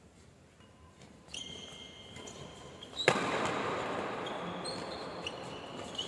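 Badminton rally on an indoor court: rackets striking the shuttlecock with sharp cracks and sports shoes squeaking on the court floor in short high squeals. A hard hit about three seconds in is the loudest sound, and the hall is noisier after it.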